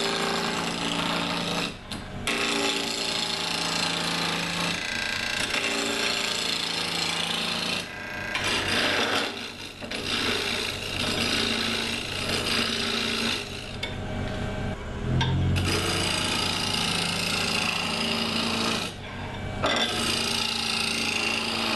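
A gouge cutting a spinning mahogany blank on a Delta 46-460 midi lathe: a continuous scraping, rasping cut over the steady hum of the lathe motor. The cut lets up briefly several times as the tool is eased off and moved along the rest.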